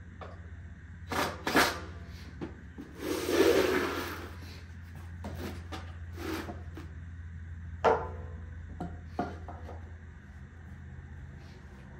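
Hand-work noises: scattered sharp clicks and knocks of hardware and wood being handled, and about a second of rattling rustle a little after three seconds in, as screws are rummaged in a plastic bin.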